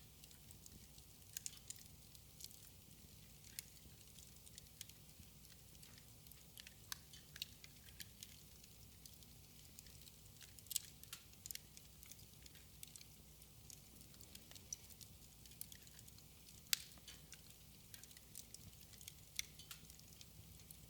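Wood fire burning in a fireplace, crackling quietly with irregular sharp pops, one louder pop past the middle, over a low steady hum and hiss.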